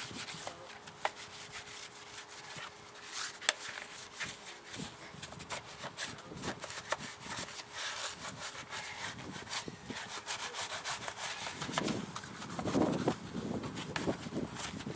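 A wheel brush scrubbing a wet, soapy alloy wheel: quick, irregular rasping strokes of bristles against the rim and spokes.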